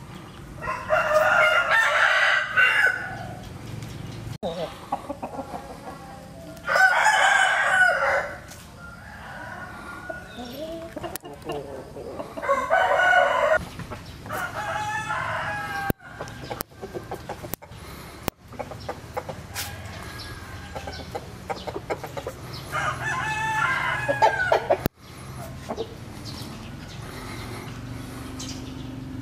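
Roosters crowing: four long crows a few seconds apart, with fainter calls in between.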